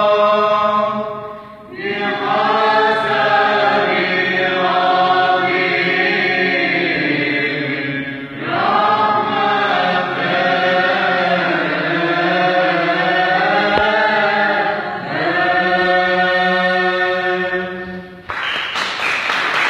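Orthodox church choir chanting in long sustained phrases, with short breaks between them. Near the end the singing gives way to a broad rushing noise.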